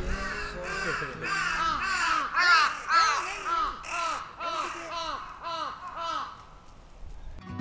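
Crow cawing over and over, a dozen or so short calls at two or three a second, dying away about six seconds in.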